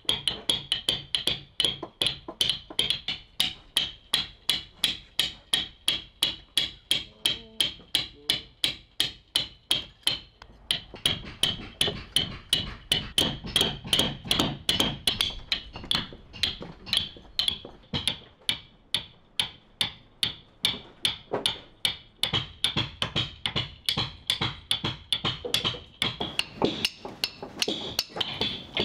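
Caulking mallet striking a caulking iron in a fast, steady rhythm of several ringing blows a second, driving cotton into the plank seams of a wooden boat's hull.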